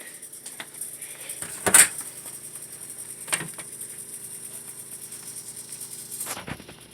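A few light knocks and clinks, the loudest about two seconds in and another about a second and a half later, over a steady faint hum.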